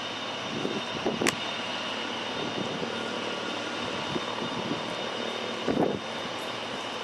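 Mooney M20J light aircraft taxiing: its four-cylinder Lycoming piston engine and propeller run at low taxi power as a steady drone, under a thin steady high whine. There is a sharp click about a second in and a brief louder thump of wind on the microphone just before six seconds.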